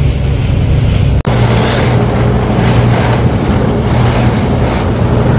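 Fishing boat's engine running steadily underway, with wind and water rushing past; the sound breaks off for an instant about a second in and comes back with more hiss of wind and spray.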